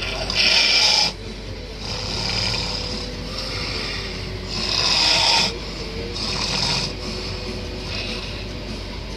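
Snoring in sleep: about five noisy breaths, one every one to two seconds, the loudest near the start and around five seconds in, over a faint steady hum.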